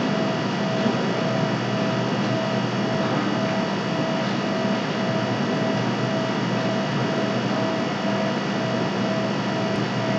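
Steady background hiss and electrical hum of the room, with a faint pulsing tone running through it; no one speaks.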